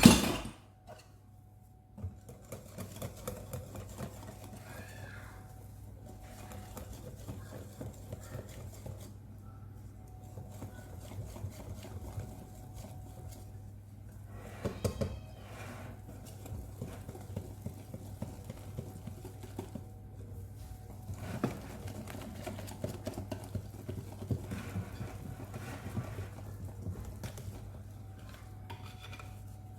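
Cake batter being mixed in a bowl: a utensil scraping and knocking irregularly against the bowl, with a loud knock at the very start.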